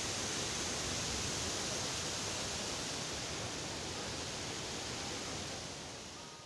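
A steady rushing noise with no distinct events, fading out at the very end.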